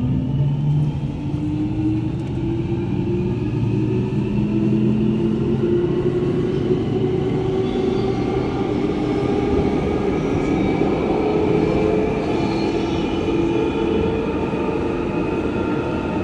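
London Underground 1996 Stock train running and accelerating, its traction motors giving a layered whine that rises slowly in pitch over a steady rumble of wheels on rail.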